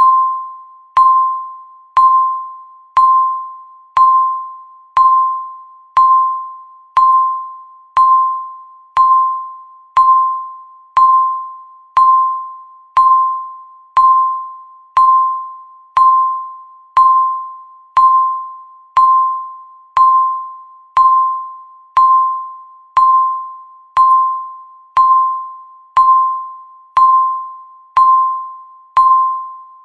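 Electronic countdown-timer beep, one per second: a single clear tone that starts sharply and rings out, fading before the next beep.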